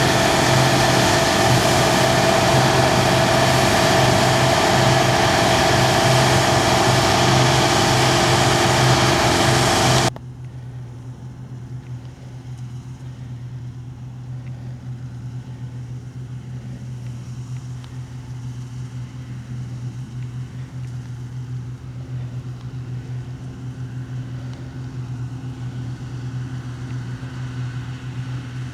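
Farm machinery engines running: a loud, close-up machine noise with steady engine tones for about ten seconds, then it cuts off abruptly to a quieter, steady engine hum.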